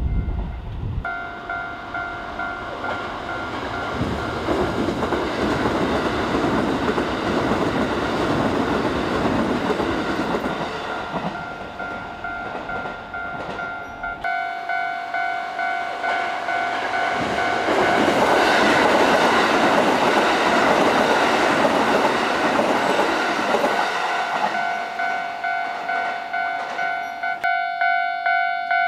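Japanese level-crossing warning bell ringing a steady electronic ding about twice a second, while a Kintetsu electric train runs past the crossing. The train's rumble grows loudest about two-thirds of the way through.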